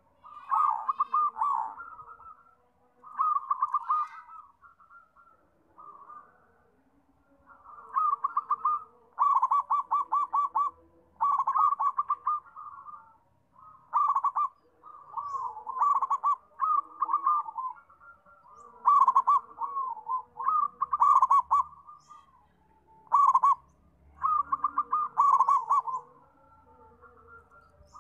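Zebra dove (perkutut) cooing: phrases of rapid, stuttering coos, each about a second long, repeated every one to two seconds.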